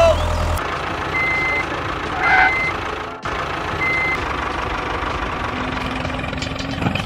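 A vehicle's reversing beeper gives three short, high, steady-pitched beeps over a steady engine-like running noise.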